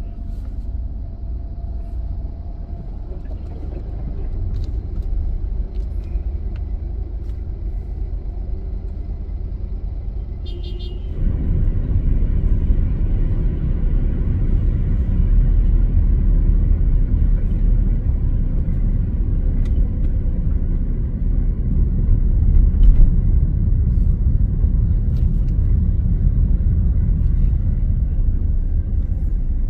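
A car driving, with a steady low rumble of engine and road noise that grows louder about eleven seconds in.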